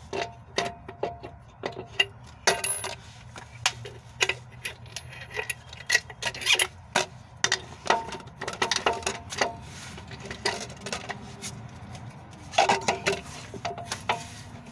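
Irregular metallic clicks, clinks and knocks as a new front shock absorber is worked up into place through the coil spring of a Chevy Silverado's front suspension, busiest about halfway through and again near the end.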